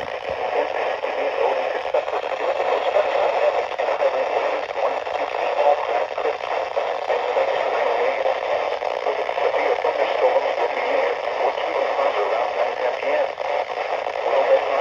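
Weather radio receiver giving a steady, crackly static hiss with no clear words.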